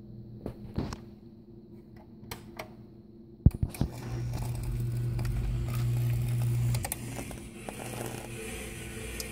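Bosch dishwasher with its control panel opened: a few light clicks, then a sharp cluster of clicks about three and a half seconds in, followed by a steady low electrical hum for about three seconds that then drops to a fainter hum. The dishwasher's control board is burning with a small flame.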